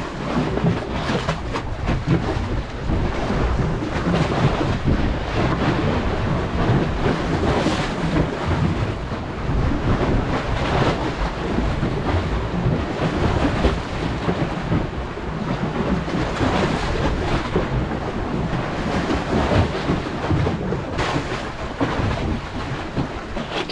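Strong wind buffeting the microphone in gusts: a loud, low rumble that rises and falls unevenly.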